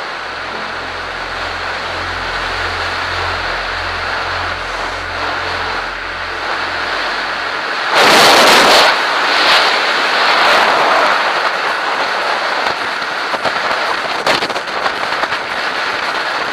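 Steady wind and road rush on a bike-mounted camera riding in traffic. About eight seconds in, a car passes very close alongside with a loud rushing whoosh lasting about a second, followed by a couple of smaller surges.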